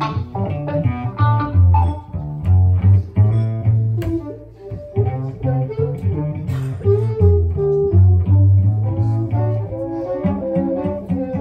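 Live string-band music with no singing: a cello playing a low, walking bass line under a fiddle.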